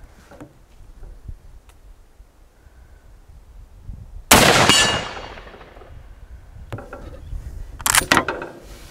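A single rifle shot from an S.A.F. Lithgow Target Rifle in 7.62×51mm NATO about four seconds in, echoing away over about a second and a half. Near the end come metallic clacks as the single-shot action is worked and the spent case is ejected.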